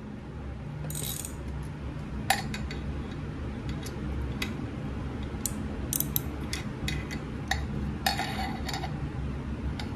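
Scattered metal clicks and two brief scrapes from a ratchet with a swivel socket being worked into place on a 3/16 Allen bolt, over a steady low hum.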